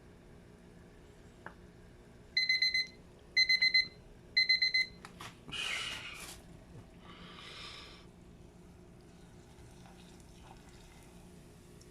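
Electronic kitchen timer beeping in three quick bursts about a second apart, signalling that the croquettes' frying time is up. A click and two short bursts of noise follow.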